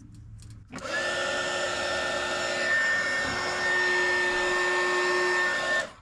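Small handheld heat gun blowing hot air onto heat-shrink tubing over soldered wires: its fan motor switches on under a second in, runs steadily with a faint whine, and cuts off abruptly just before the end.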